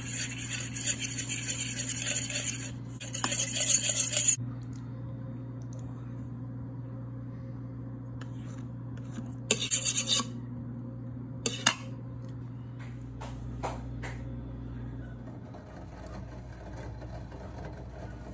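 Metal spoon, then fork, scraping and clinking against a ceramic plate while stirring a liquid. The scraping comes in two stretches over the first four seconds, then in short bursts around the middle, over a steady low hum.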